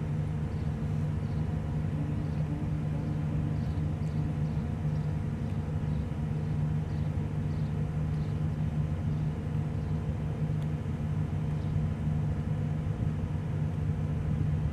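Big cargo ship's diesel engine running with a steady low drone and hum as the ship slowly moves off the jetty.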